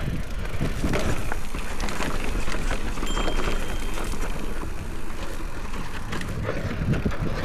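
Electric mountain bike descending a dirt trail: a steady rumble of tyres over rough ground and wind on the microphone, with the bike knocking and rattling over bumps throughout.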